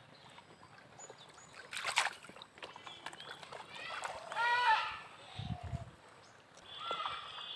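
A short splash in the pond water about two seconds in, then a voice calling out briefly near the middle, over faint outdoor background.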